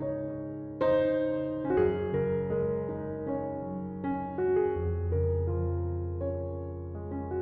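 Background piano music: slow, soft notes over sustained low bass tones.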